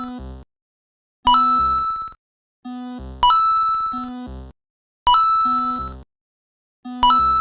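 Cartoon level-crossing warning bell sound effect: a bell-like ding struck four times, about every two seconds, each ringing out quickly. Before each ding comes a short lower tone that steps down in pitch.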